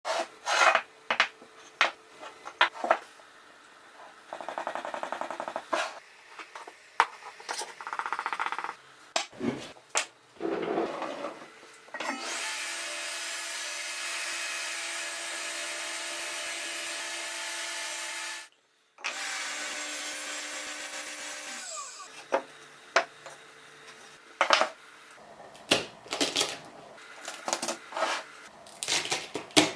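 Woodworking sounds: wooden pieces handled and knocked together, short runs of a power tool, and a Bosch table saw running steadily for about ten seconds in the middle with a brief gap.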